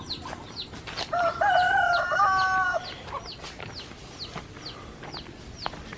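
A rooster crowing once, a drawn-out cock-a-doodle-doo about a second in that lasts roughly two seconds. Short high chirps repeat through it, a couple a second.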